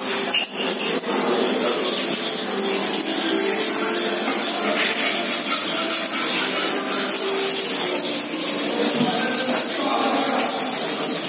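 Kitchen tap running steadily into a stainless-steel sink, with a few short clicks near the start.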